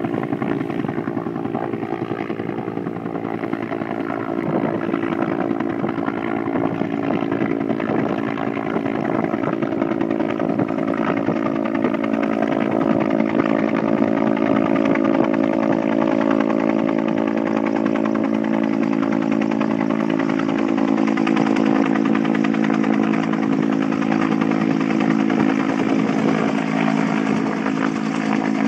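A boat's engine running steadily at an even speed, a constant droning hum.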